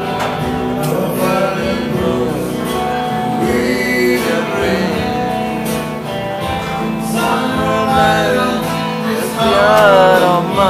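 Live music: a singer with a guitar performing a song, the voice wavering on held notes and loudest near the end.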